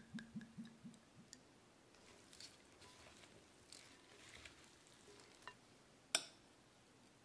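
Olive oil glugging out of a glass bottle in short, even pulses during the first second. Then soft rustling as salad leaves are tossed with wooden spoons in a glass bowl, and a single sharp click about six seconds in.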